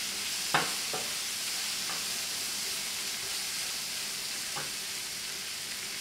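Onions and garlic sizzling in oil in a frying pan as they are stirred with a wooden spatula, with a few knocks of the spatula against the pan, the loudest about half a second in.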